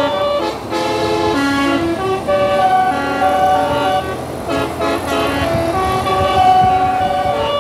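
Bus telolet horn, a set of multi-tone horns, playing a tune of held notes that step up and down in pitch, with a brief break about four seconds in.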